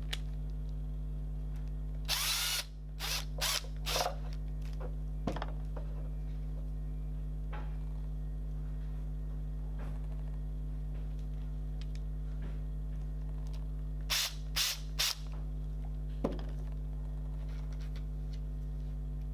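Cordless drill-driver run in short bursts, driving screws: a cluster of four brief bursts about two seconds in and another four around fourteen to sixteen seconds, over a steady electrical hum.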